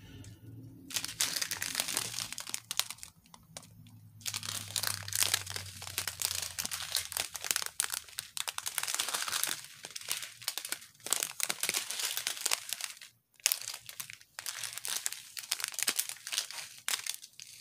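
Small clear plastic bags of diamond-painting drills crinkling as they are handled and shuffled in the hands. Two long stretches of crinkling with a short pause between.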